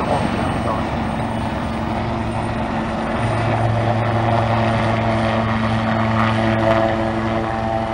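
Propeller aircraft engine running steadily as the plane flies its display, with its low, even note growing stronger about three seconds in.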